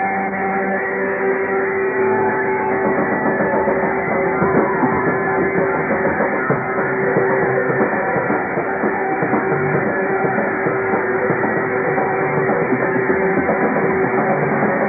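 A rock band playing live: electric guitar and drum kit, loud and continuous, with one guitar note held steadily throughout.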